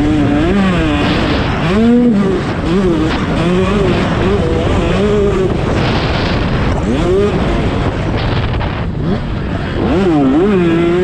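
A motorcycle engine ridden hard on a track, its pitch rising and falling in quick arcs every second or so as the throttle is worked and gears change, louder with a fresh rise near the end.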